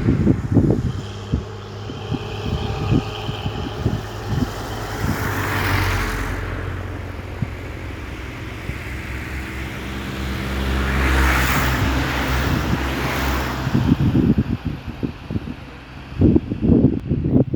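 Road traffic: a steady engine hum, with vehicles passing twice, swelling and fading, and wind buffeting the microphone near the start and the end.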